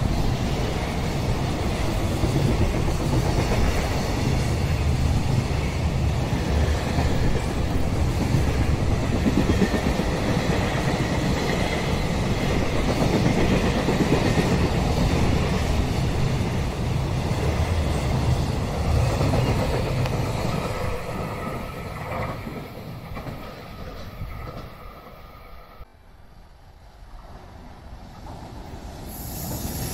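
Container freight train wagons running past close by: a loud, steady rumble of steel wheels on the rails that fades away after about twenty seconds. After a break, the noise of another freight train grows louder near the end.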